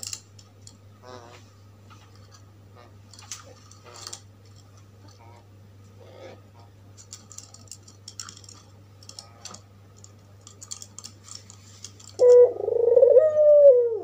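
Faint scattered taps and scratches, then about 12 seconds in an albino Barbary dove (puter) breaks into a loud cooing call that rises and falls in pitch.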